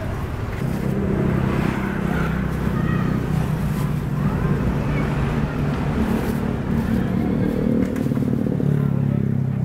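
A motor vehicle engine idling close by: a low, steady hum that holds throughout.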